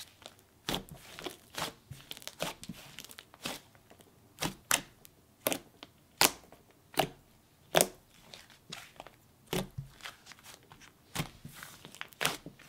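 Thick, chewy white slime mixed with soft clay being squished, pressed and stretched by hand, giving irregular sharp pops and crackles, with small sizzly crackles between them.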